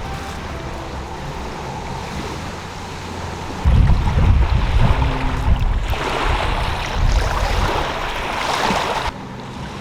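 Wind buffeting the microphone in gusts over a steady outdoor rushing ambience, cutting off abruptly near the end.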